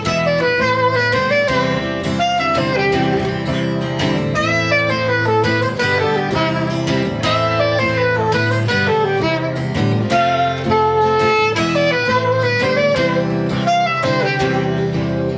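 Live acoustic guitar strumming chords, with a melody line played over it in an instrumental break between sung verses.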